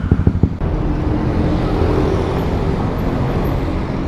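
Single-cylinder motorcycle engine idling with an even putter of about ten beats a second. Under a second in, this gives way to a steady low rumble and hiss.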